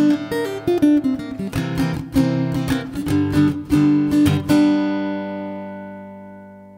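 Acoustic guitar strumming the closing bars of a song, then a final chord about four and a half seconds in that rings on and fades away.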